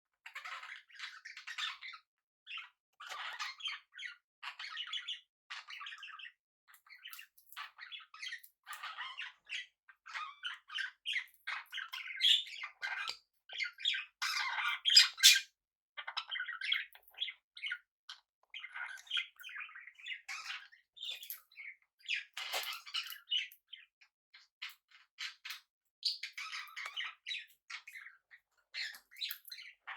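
Pet budgerigars and cockatiels chirping and chattering in many short bursts, with louder squawks about halfway through.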